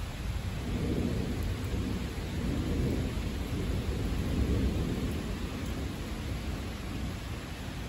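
A long, deep rumble of thunder over steady rain, swelling about half a second in and dying away after five or six seconds.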